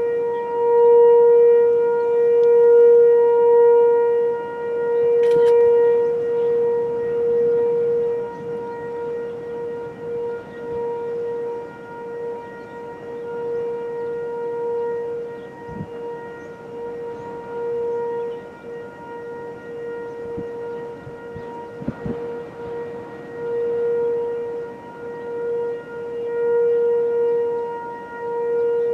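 Outdoor tornado warning siren sounding a steady wail at one unchanging pitch, its loudness swelling and fading every few seconds.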